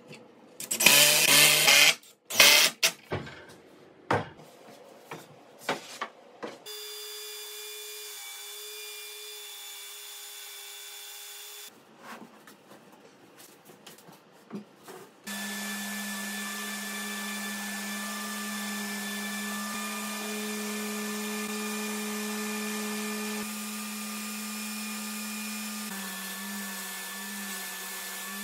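A Bosch cordless drill drives a screw into wood in a short loud burst about a second in, followed by knocks and clatter of wooden pieces. From about halfway a steady machine hum runs on, shifting slightly in pitch near the end.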